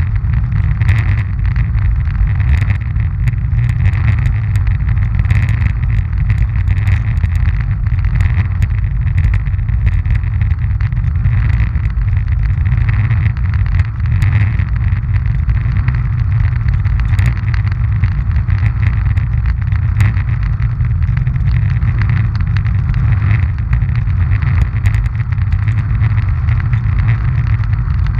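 Roller ski wheels rolling fast over coarse asphalt, close up: a steady, heavy rumble that swells about every second and a half, with scattered light clicks.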